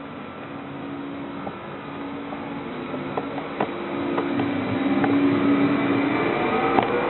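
Stadler FLIRT electric multiple unit arriving alongside the platform, growing louder as it draws near: a steady electric whine from its drive, with scattered clicks of the wheels on the rails.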